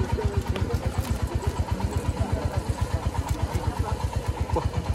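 A small engine idling steadily, a low even chugging of about eight beats a second.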